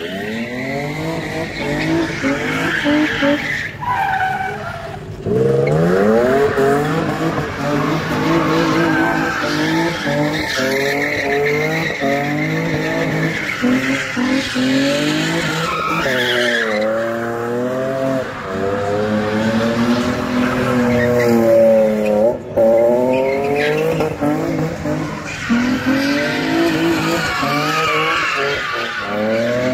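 Infiniti G35 coupe's V6 engine revving hard, its pitch swinging up and down again and again as the car drifts in circles, with tyres squealing and skidding on asphalt.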